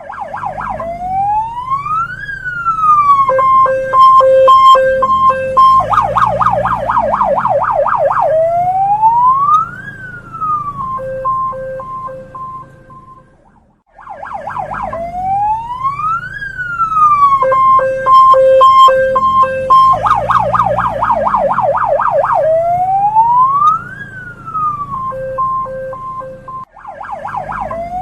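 Hong Kong police car siren running through its cycle of tones: slow rising-and-falling wails, a pulsing two-tone high-low pattern, and a burst of rapid fast yelps. The sequence repeats about every 14 seconds, with a short break about halfway through.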